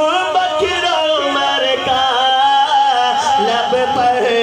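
A man singing a naat, an Urdu devotional poem in praise of the Prophet, unaccompanied, through a microphone and PA. He draws the notes out in long, wavering glides.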